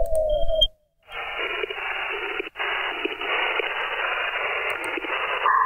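Shortwave receiver audio on the 27 MHz CB band. A falling whistle tone fades out, a brief moment of dead air follows, then steady static hiss of an empty channel comes through the narrow upper-sideband filter.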